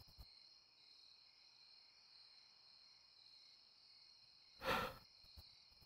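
A man's single heavy sigh about five seconds in, over faint steady insect chirring.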